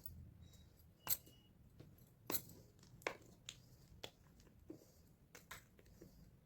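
Pressed gym chalk being crushed: scattered small sharp cracks and crumbles at an irregular pace, the loudest snaps about one, two and three seconds in.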